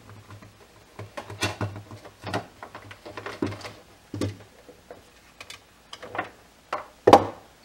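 Utility knife blade cutting across a pressure washer hose in a series of short, irregular strokes, with one louder knock near the end.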